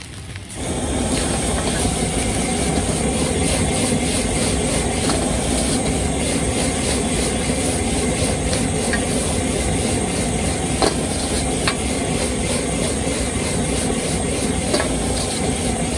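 High-powered gas wok burner turned up about half a second in, then running with a loud, steady roar. A metal ladle scrapes and clicks against the wok now and then as the food is tossed and stir-fried.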